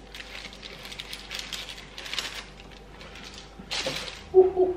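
Baking paper rustling, with light scrapes and clicks on a metal oven tray, as a baked loaf is shifted and lifted off it.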